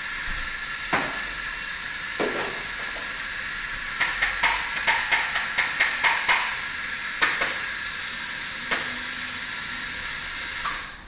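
Espresso machine steam wand hissing steadily while steaming milk, cutting off abruptly near the end. About halfway through comes a quick run of about ten sharp clicks, roughly four a second, from a coffee grinder's doser lever being pulled to dose grounds, with a few single knocks before and after.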